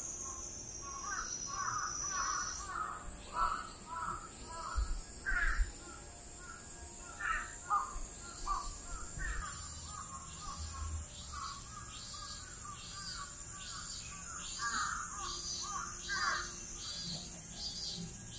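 Crows cawing repeatedly, over a steady high insect buzz. About halfway through, a regular high chirp joins in, roughly twice a second.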